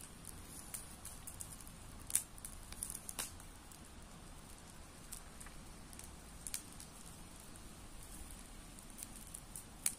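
Small brush fire crackling, with irregular sharp pops, the loudest a little over two seconds in and another near the end.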